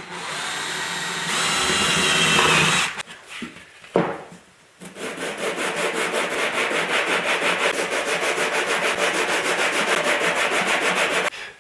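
Makita cordless drill boring through a wooden strip for about three seconds, getting louder partway through, then stopping; a single knock follows. Then a small wooden part is rubbed rapidly back and forth on a sheet of sandpaper, several strokes a second, a steady rasping that stops just before the end.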